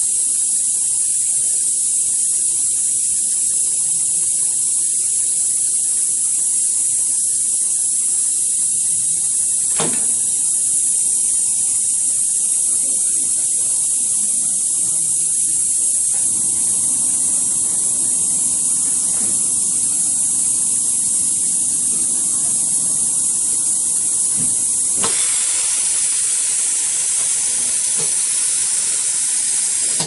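Hot-press flex cable bonding machine hissing steadily and loudly while it presses a touch flex cable onto a phone screen, with a sharp click about ten seconds in and another near the end. The hiss stops abruptly at the close.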